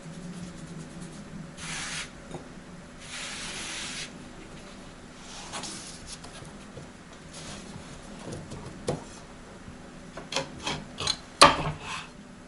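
Kitchen handwork on a wooden board: a few rubbing, scraping strokes, then a quick run of light knocks and clicks, the loudest a sharp knock near the end.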